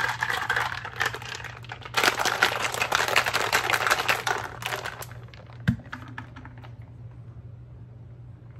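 Ice cubes rattling fast inside a lidded cup of iced coffee as it is shaken, in two spells, the second louder. A single sharp knock, the loudest sound, comes a little after halfway.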